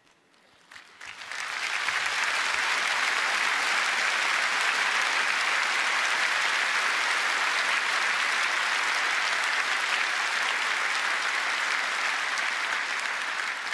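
Large audience applauding at the end of a song. After a moment of quiet, the applause breaks out about a second in, swells within a second and then holds steady.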